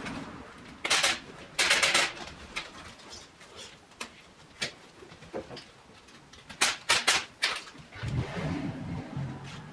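Hands working dust-collection hose and fittings: several short rasping, rustling bursts and small knocks as the parts are pushed and fitted, with a low murmur near the end.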